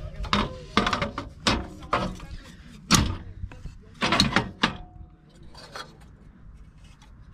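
Tie-down strap hardware on a motorcycle carrier clicking and clanking as the straps are hooked on and tightened: a string of sharp, separate clicks and knocks over the first five seconds, then it goes quiet.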